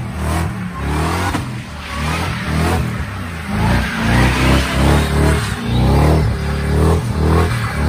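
Pickup truck engine revving hard during a burnout, the revs rising and falling repeatedly, with the rear tyres spinning on the pavement.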